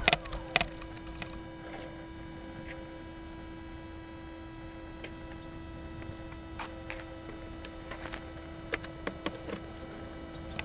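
Faint steady electronic hum from a landed camera drone with its motors off, with a few scattered small clicks.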